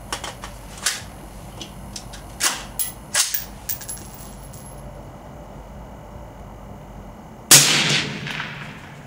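AR-15 carbine firing a single supersonic Monarch .223 round through a Gemtech G5 suppressor about seven and a half seconds in: one sharp report with a tail that fades over about a second and a half. Before it, a few sharp metallic clicks and clacks as the rifle is readied.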